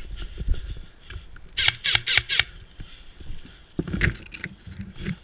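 Footfalls thudding and tall grass and leafy bushes rustling and swishing as someone runs through them, with a run of four quick swishes about a second and a half in and another burst of rustling near the end as the bush is pushed through.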